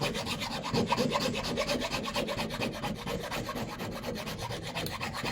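Leatherman Rebar's file rasping quickly back and forth across wood, rounding off an edge.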